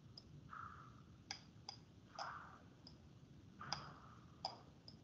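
Faint, irregular clicks, about eight in five seconds, with a few soft scraping sounds between them: the sounds of lines being drawn on a computer slide.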